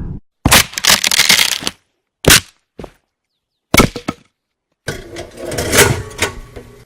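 A run of separate short sound effects with silent gaps between them: a crackling burst about half a second in, brief sharp cracks around two and a half and four seconds in, then a longer crashing burst from about five seconds in.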